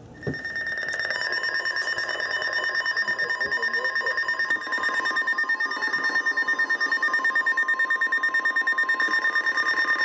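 Weather radio alert tone: a steady, high electronic tone, joined about a second in by a second, lower tone, the two pulsing rapidly throughout. It is the alarm that opens a National Weather Service Special Marine Warning broadcast.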